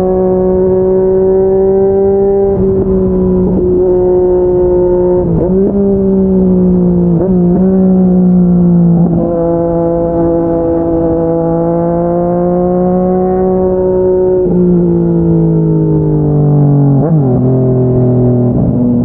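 Yamaha MT-09 three-cylinder engine through a Yoshimura R55 slip-on exhaust, pulling at fairly steady revs with brief dips in pitch as the throttle is eased and reopened. Near the end the pitch steps down twice as the bike shifts up.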